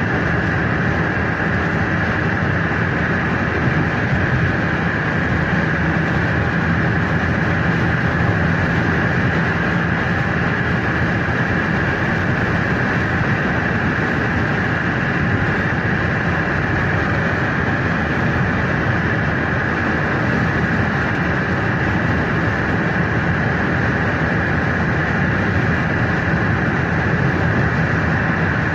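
Steady road and engine noise inside a car's cabin at highway speed: an even rush of tyre and wind noise that doesn't change.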